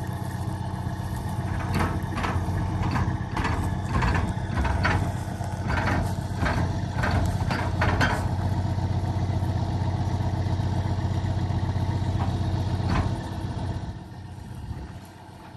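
Semi-truck's diesel engine idling steadily, with a run of sharp knocks and clanks over the middle of the stretch; the engine sound drops off near the end.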